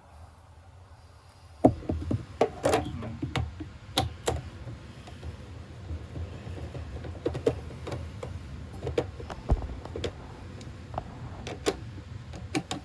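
Irregular clicks and knocks of hands working on the job, starting about one and a half seconds in, over a low rumble.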